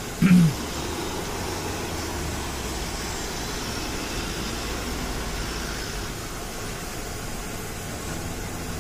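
A brief vocal sound just after the start, then a steady low drone of a truck's diesel engine under an even hiss.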